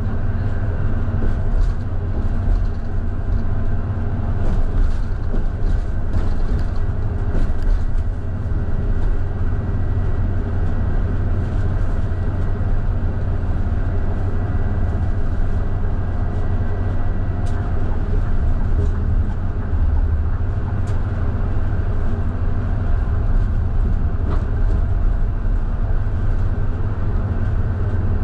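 A Scania K320IB single-deck bus under way: its diesel engine gives a steady low drone over road noise, with light rattles and clicks now and then in the first few seconds.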